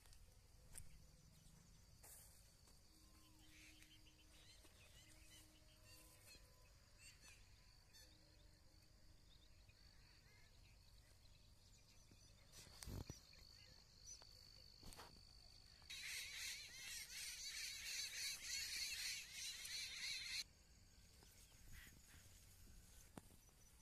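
Near-silent rural ambience with a faint steady high insect whine. A single sharp click comes about two-thirds of the way through. Shortly after, a loud high hissing noise runs for about four seconds and cuts off suddenly.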